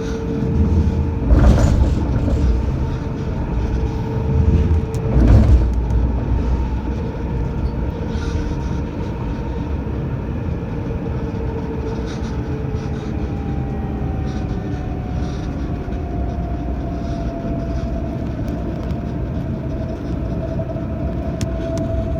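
Tram traction motors whining: a steady tone over a low rumble that slowly falls in pitch through the second half. Two heavy thumps come in the first few seconds.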